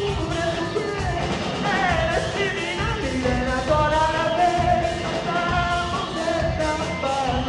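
Live rock band playing: a male singer singing into the microphone over electric guitars and a drum kit.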